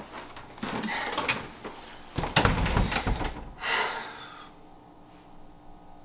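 Apartment front door being opened and shut as someone comes in, with a dull thump a little over two seconds in.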